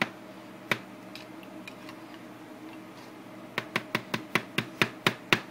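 A spoon knocking against the side of a plastic tub while potato salad is stirred. There is a single sharp click about a second in, then a steady run of clicks about four a second starting a few seconds in.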